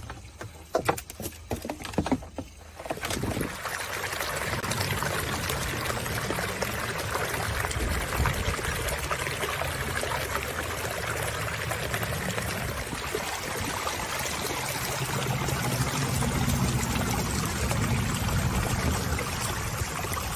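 Water splashing steadily down a stone waterfall into the pond. A few sharp clicks and knocks come in the first few seconds, before the flow starts.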